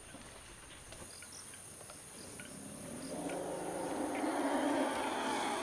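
Forest elephant calf calling, a call that begins about halfway through and grows louder, over a steady high insect buzz: the distress call of a calf separated from its mother.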